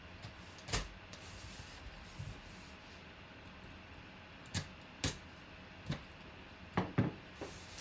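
Packing tape on a cardboard box being slit open along its seam: a soft scraping hiss, with a sharp click about a second in and a run of half a dozen sharp clicks and knocks from the box being handled in the second half.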